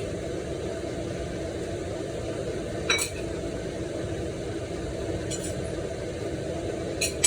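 Two sharp clinks of a utensil against a dish, one about three seconds in and one near the end, over a steady low kitchen background noise.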